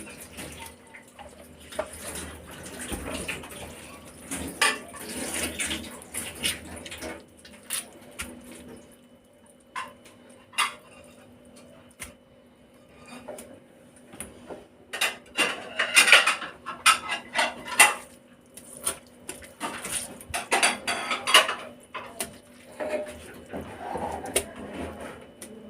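Kitchen utensils and dishes clinking and scraping in irregular clatters while vegetables are stuffed with rice filling for mahshi, with the busiest, loudest clatter about fifteen to eighteen seconds in.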